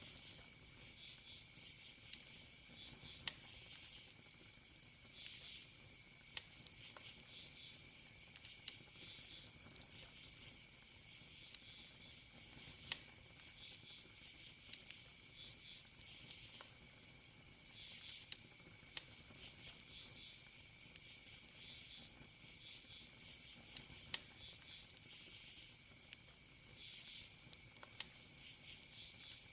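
Wood campfire crackling, with irregular sharp pops. Behind it, crickets chirp in pulsing groups over a steady high insect trill.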